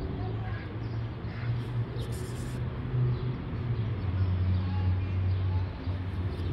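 A low, steady engine hum, which drops a little in pitch about four seconds in, with a few faint bird chirps over it.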